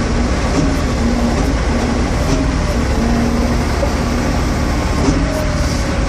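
Heavy equipment diesel engine running steadily, heard from inside the operator's cab, with a pitched whine that comes and goes as the machine works the tie clamp.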